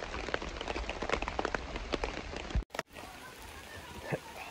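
Water drops falling on tent fabric, heard from inside the tent as a dense run of irregular ticks. It cuts off abruptly about two and a half seconds in, and a quieter outdoor hiss follows.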